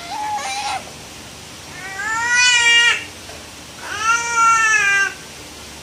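Infant crying: three wavering wails of about a second each, the first short, with gaps between.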